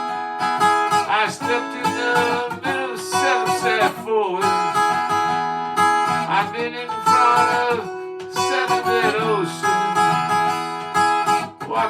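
Acoustic guitar strummed as song accompaniment, with a wavering melody line carried over it.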